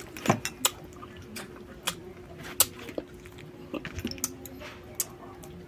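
Close-up eating sounds: irregular sharp cracks and clicks of crab or snail shell being bitten and chewed, about a dozen in all.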